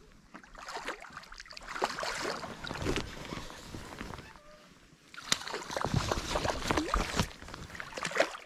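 Water sloshing and splashing against a small boat, in two spells of irregular splashes a few seconds long with a short lull between them.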